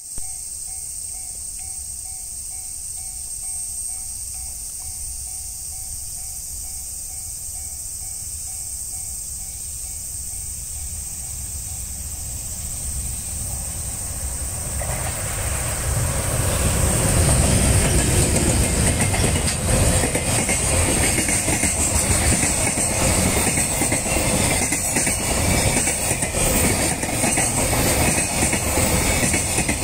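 EH500 electric locomotive hauling a container freight train, approaching and passing. A faint low rumble swells about halfway through as the train arrives, then stays loud with the running noise of the container wagons and a steady clatter of wheels over rail joints.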